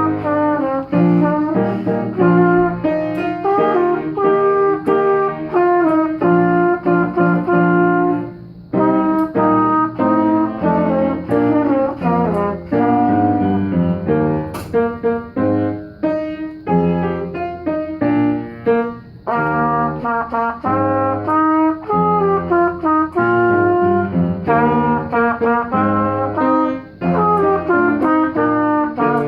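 A trumpet playing a melody over band accompaniment, with several brass voices sounding together. The music breaks off briefly about eight and a half seconds in.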